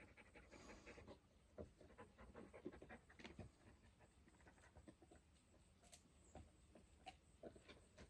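Near silence, with a few faint scattered clicks and knocks.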